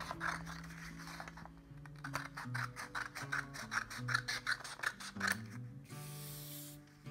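Scissors cutting through a sheet of green paper in a quick series of snips, over background acoustic guitar music. A brief paper rustle follows near the end as the two halves come apart.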